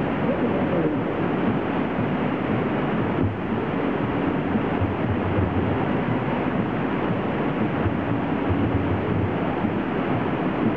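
Steady rushing of whitewater rapids pouring down steep granite slabs.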